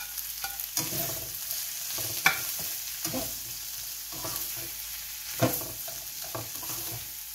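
Diced tomatoes and onions sizzling in a hot nonstick frying pan while a slotted spatula stirs and tosses them, with scrapes and taps of the spatula against the pan. The sharpest knocks come about two seconds in and again about five and a half seconds in.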